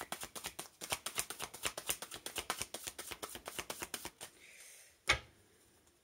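A deck of oracle cards being shuffled by hand: a quick run of card flicks, about ten a second, that stops about four seconds in, followed a second later by a single sharp tap.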